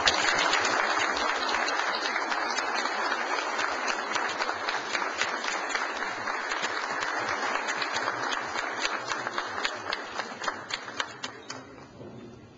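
Audience applauding: dense clapping starts suddenly, holds steady, then thins to a few scattered claps and stops about eleven seconds in.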